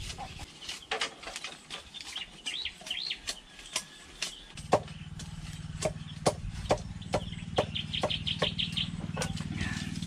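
Bolo knife blades chopping and whittling bamboo: sharp knocks, at a regular two or so a second in the second half. Birds chirp in the background, and a low steady hum comes in about halfway.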